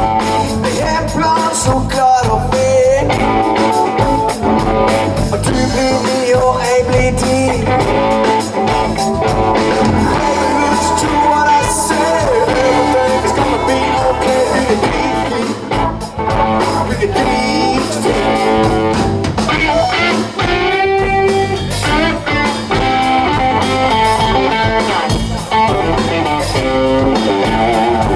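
Live blues-rock band playing through a PA: electric guitar, bass guitar and drum kit.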